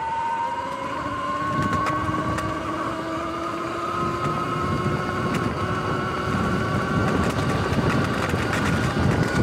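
Sur-Ron X electric dirt bike riding over grass: the motor and freshly replaced chain and sprockets give a steady whine that rises slowly in pitch as the bike gathers speed, over a rough rumble from the tyres on the turf.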